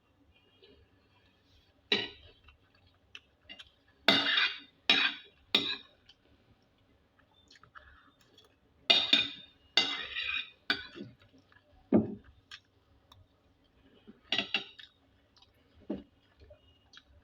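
Cutlery clinking and scraping against a dish during a meal, in about ten short, sharp strokes that come in small groups.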